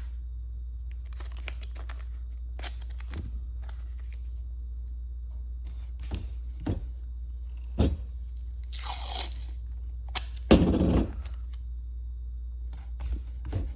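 Masking tape being pulled off the roll, torn and pressed down, with scattered handling rustles and scrapes; the loudest tear comes about ten and a half seconds in. A steady low hum runs underneath.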